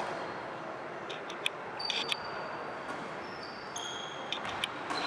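Sports hall noise during a tchoukball game: short high squeaks of shoes on the court floor and a few sharp knocks of the ball, over a steady reverberant background.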